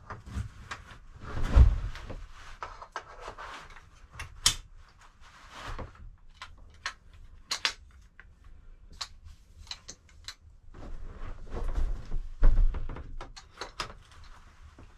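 A Helinox lightweight cot being assembled: its metal poles and crossbars clicking and knocking into place, with rustling of the cot fabric. Two heavier thumps stand out, about one and a half seconds in and again near twelve and a half seconds.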